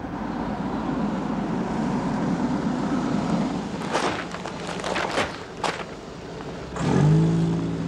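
Steady vehicle engine and traffic rumble, then a handful of dull thuds as heavy cement bags are dropped and stacked. Near the end an engine revs up loudly.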